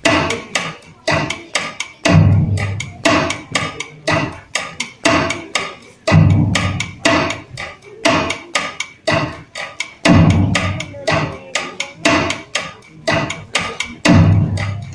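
Percussion-led dance music: quick, sharp, woody strikes several times a second, with a heavy low drum beat about every four seconds.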